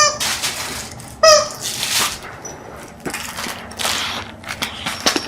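A dog playing with a squeaky toy: two short squeaks, one at the start and one about a second in, amid rustling, chewing and scattered clicks.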